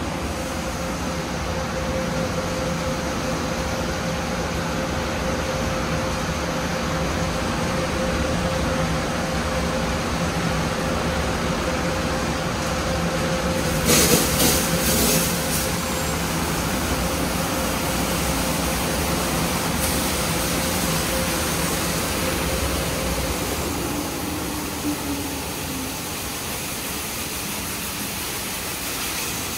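Petit Accutrac 360-I touchless car wash spraying a car: a steady rush of high-pressure water jets over a constant machine hum. About halfway through, a short run of louder hissing spray blasts.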